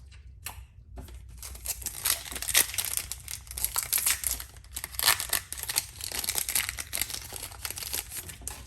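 Foil booster-pack wrapper of Yu-Gi-Oh! cards being torn open and crinkled by hand, a dense irregular crackle starting about a second in.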